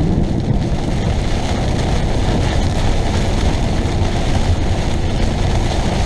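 Steady rumble of an RV driving at highway speed, heard from inside the cab: engine and road noise.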